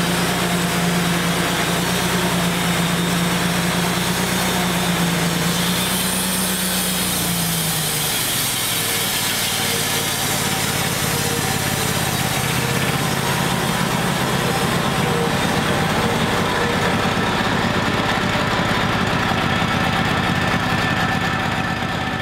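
Wood-Mizer LT35 portable band sawmill running steadily, its blade sawing through a walnut log. About seven seconds in, the engine note drops lower and turns rougher.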